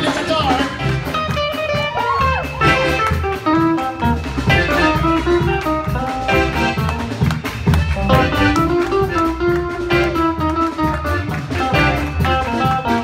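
Live gospel band playing an instrumental passage: electric guitar lines over a drum kit.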